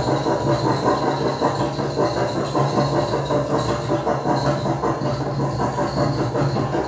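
Dense, rattling electronic noise texture: a steady low hum under a fast, even flutter of clicks and hiss, part of an improvised electronic music soundtrack.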